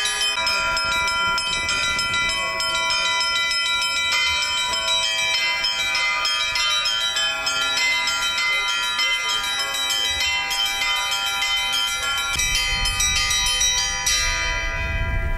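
Orthodox church bells ringing, several bells struck together so that their tones overlap and hang in the air. A low rumble joins in during the last few seconds.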